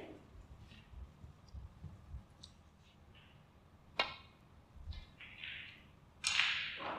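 Snooker cue tip striking the cue ball with a sharp click about four seconds in. A couple of seconds later comes a louder clack as the cue ball, played with swerve to escape a snooker, hits the green ball.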